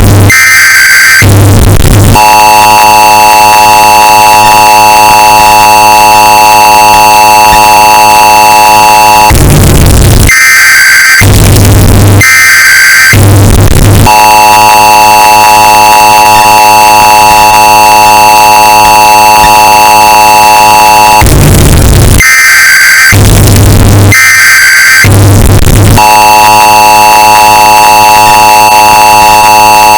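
Emergency Alert System alert sound, bass-boosted and distorted to clipping: a few short bursts of screeching data tones, then the long steady two-tone attention signal for about seven seconds. The cycle repeats about every 12 seconds.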